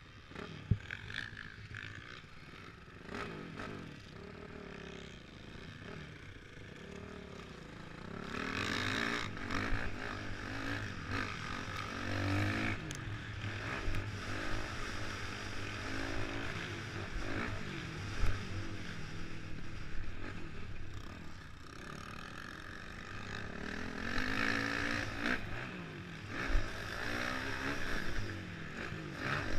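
Motocross dirt bike engine revving up and falling back again and again as it runs the track, heard from a camera on the rider's helmet. There are two sharp knocks, one right at the start and one about two-thirds of the way through.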